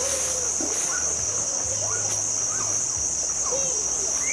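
Insects droning steadily at a high pitch, with faint short sliding calls underneath.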